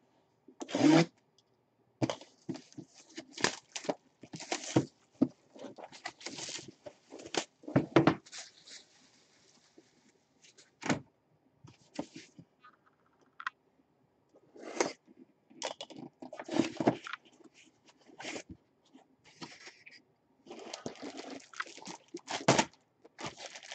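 Cardboard box being opened by hand: the lid scraping and sliding off, with scattered knocks and rubs of cardboard. Near the end, a plastic bag rustles as the jersey inside is handled.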